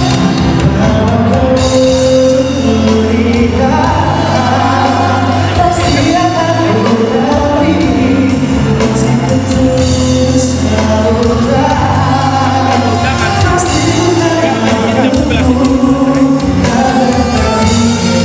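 Music: a singer carrying a slow Indonesian pop song over a band with bass and drums.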